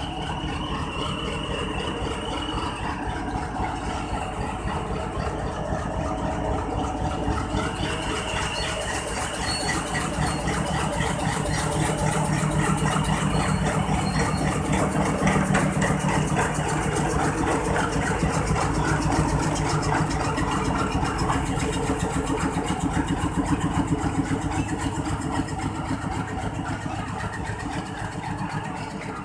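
Diesel-electric locomotive of a passenger express running at the station, a steady low engine note that grows louder about ten seconds in, holds, then eases off near the end. A few faint high-pitched squeals sound over it.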